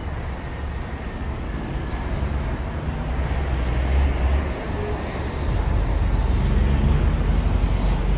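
City street traffic noise: passing vehicles making a steady low hum of engines and tyres, a little louder in the second half.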